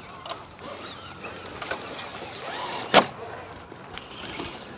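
Small electric motor and gearing of an RC rock crawler whining faintly as the scale truck creeps over rock, with scattered light clicks and one sharp knock about three seconds in.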